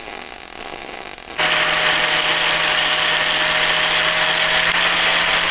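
Welding arc hissing and crackling for about the first second and a half. Then an angle grinder starts suddenly and runs at a steady whine, grinding down a weld bead on a steel bar.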